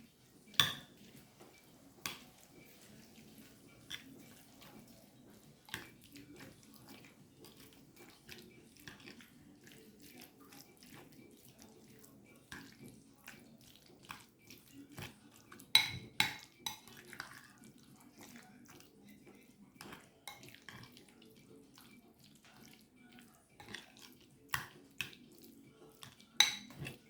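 A spoon clinking and scraping against a bowl at irregular intervals while mixing chicken pieces with mayonnaise, with a few louder knocks about half a second in, around the middle and near the end.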